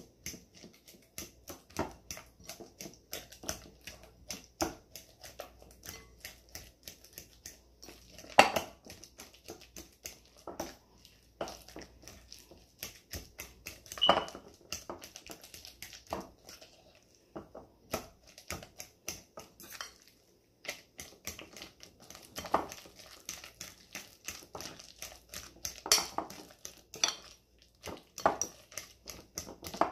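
Metal fork mashing overripe plantains in a glass bowl: a steady run of quick taps and soft squelching scrapes, a few a second, with an occasional louder clink of the fork against the glass.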